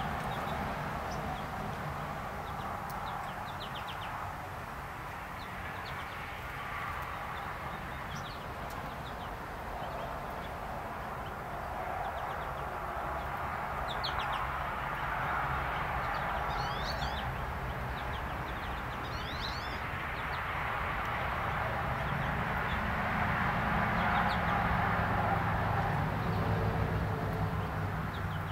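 Birds chirping in short, scattered bursts over a steady low background rumble that grows louder near the end.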